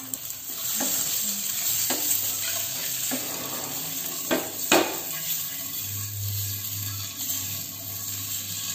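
Slit boiled eggs frying in oil and chili-turmeric masala in a non-stick pan, sizzling steadily, with a few sharp knocks of a wooden spatula against the pan as they are stirred and turned.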